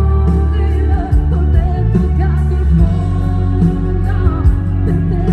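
A woman singing a Neapolitan pop song live into a microphone over a loud band backing, with a heavy bass line and a regular drum beat.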